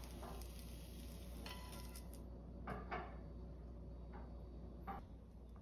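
Chopsticks and slices of ham lightly tapping on a ceramic plate as the ham is laid down: a few soft, short taps, after a faint hiss that fades out about two seconds in.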